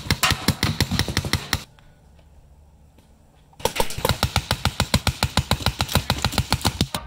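Adrenalin Angel LCD electropneumatic paintball marker firing rapid strings of shots, about ten a second. The firing stops about a second and a half in and starts again about two seconds later.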